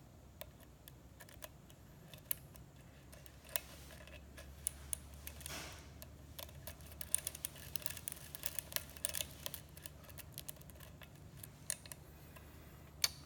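Lock pick and tension wrench working the pins of a six-pin Schlage-style kik cylinder: scattered small metallic clicks and scrapes that come thick and fast in the middle of the stretch, with one louder click near the end.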